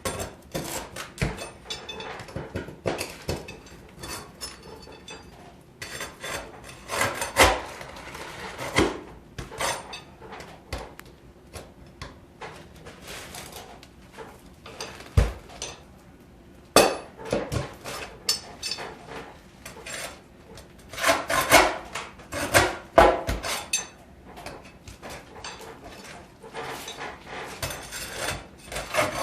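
Flat pry bar (wonder bar) working under asphalt roof shingles to pop out roofing nails: irregular scraping against the shingles with sharp metal clinks and knocks, a few of them louder.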